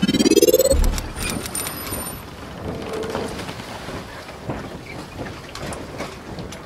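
Logo intro sound effect: a rising whoosh-like tone that ends in a low boom about a second in, followed by a steady rushing, rain-like wash with scattered clicks and brief high shimmering tones.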